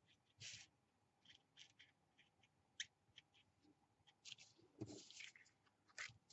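Near silence, with faint, short scratches of a Faber-Castell black marker's felt tip stroked along the edge of a paper jigsaw piece, and a soft low sound just before five seconds in.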